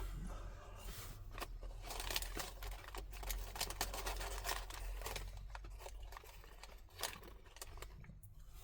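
Fast-food paper packaging being handled, with crinkling, tearing and irregular rustling clicks.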